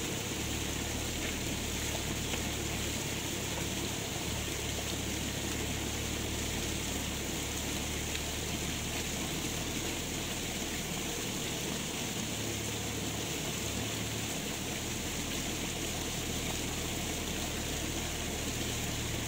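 Steady rushing noise of flowing water, with a low steady hum underneath.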